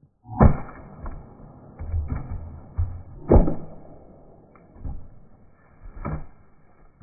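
Axe chopping firewood: two loud, sharp blows into a wood round on a chopping block, about half a second in and again about three seconds later, with lighter knocks of the axe and split pieces between and a further knock near the end.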